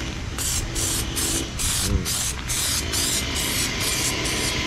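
Aerosol spray can of wrinkle paint sprayed in a quick series of about ten short hissing bursts.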